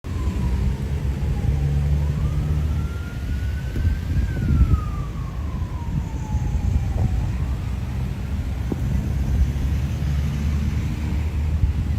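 A siren wailing, its pitch sliding slowly up and down about once every five seconds, heard over a loud, steady low rumbling noise, with a couple of short knocks.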